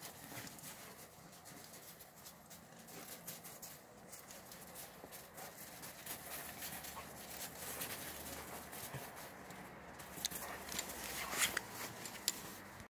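Dogs' paws and footsteps crunching on snow, as irregular quick steps that grow busier and louder near the end.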